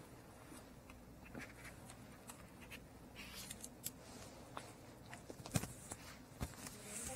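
Faint scattered rustling and light clicks in a small room, with two sharper knocks near the end.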